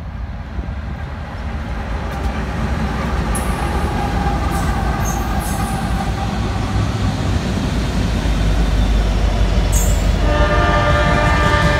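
Norfolk Southern freight train's diesel locomotives approaching and passing close by, the engine rumble growing louder. About ten seconds in a train horn starts sounding a steady chord.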